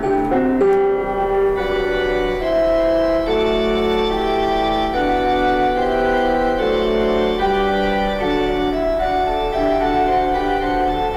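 Background instrumental music: a slow melody of long held, organ-like keyboard notes over sustained chords.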